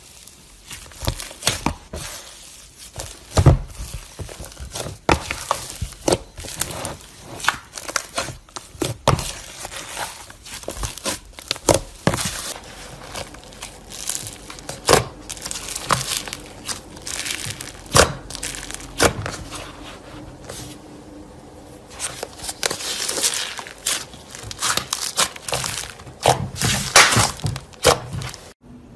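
Slime being squeezed and poked by hand: an irregular run of crackling, popping and sticky clicks.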